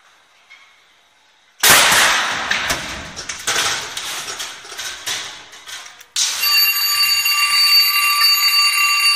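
A stage pyrotechnic effect goes off with a sudden loud burst, then hisses and crackles as it fades over about four seconds. About six seconds in, a steady, high-pitched electronic alarm starts abruptly and keeps sounding.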